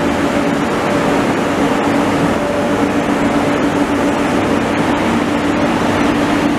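Israel Railways red double-deck passenger coaches moving past close by: steady running noise with a steady hum.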